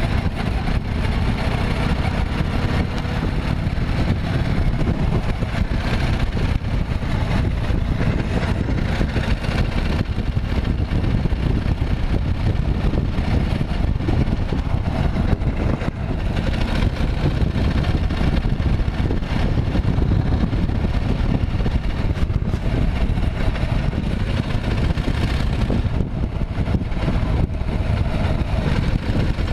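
Harley-Davidson XLH1200 Sportster's air-cooled V-twin engine running steadily, recorded by its owner as a record of an abnormal noise.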